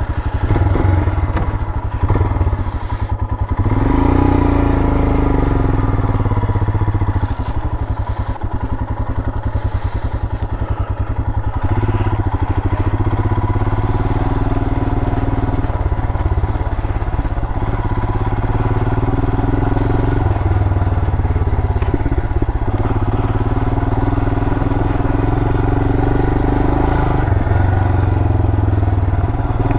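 The 411 cc single-cylinder engine of a 2020 Royal Enfield Himalayan motorcycle running under way. Its speed climbs about four seconds in, then rises and falls several times.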